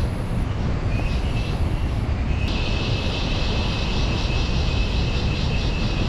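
A steady low rumble throughout. About two and a half seconds in, a shrill, pulsing insect buzz cuts in and holds.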